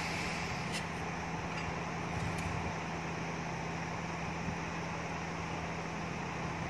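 Steady hum of running machine-shop machinery with a constant low tone, and a few faint light clicks in the first couple of seconds.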